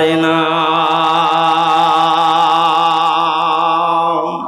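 A man's voice chanting a sermon, holding one long sung note with a slight waver. It breaks off shortly before the end.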